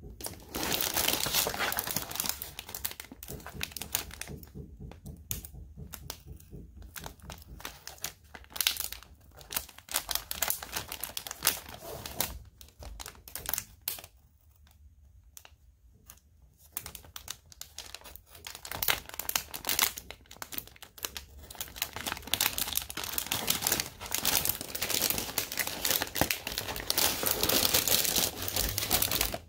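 A clear plastic sheet crinkling as hands handle it and a hobby knife cuts along lines on it, in irregular scratchy bursts. It goes quieter twice, about five seconds in and around the middle.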